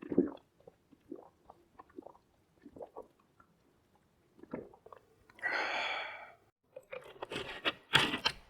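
Someone drinking a soft drink: a string of short gulping swallows, then a breathy exhale lasting about a second, followed by crackling clicks near the end.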